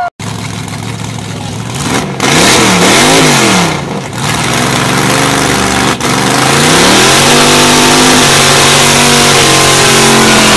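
Drag car's engine revved hard in two quick rising-and-falling blips, then brought up and held at high revs as the rear tyres spin in a smoking burnout, with a steady harsh rush of tyre noise over the engine note for the last few seconds.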